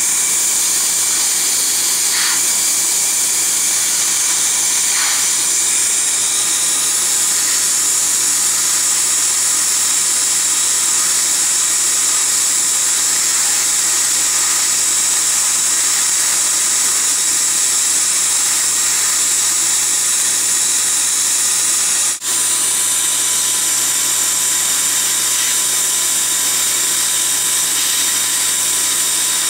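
Steady high hiss of dental operatory equipment: the air-water spray of an Er,Cr:YSGG dental laser handpiece with suction running during soft-tissue work. It breaks off for an instant about three-quarters of the way through.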